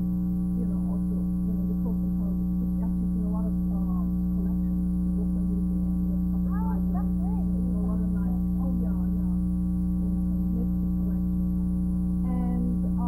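Loud, steady electrical hum from the recording chain, with faint conversation barely audible beneath it: the voices were recorded far too low.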